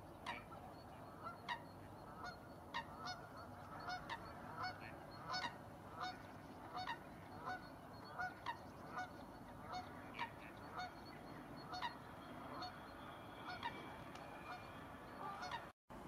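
Waterfowl calling over and over, short honking calls more than one a second, from a flock on open water. The sound drops out for a moment near the end.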